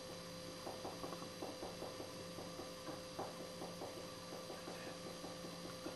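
Faint steady electrical hum, with faint irregular soft sounds over it.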